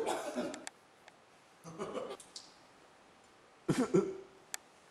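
A man's wordless vocal noises, a few short groan- or gasp-like sounds with wavering pitch at the start, about two seconds in and near the end, with faint clicks between them.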